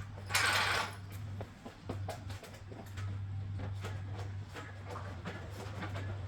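Small metallic clicks and taps of hand tools at work on a car, with a short burst of hiss about half a second in, over a steady low hum.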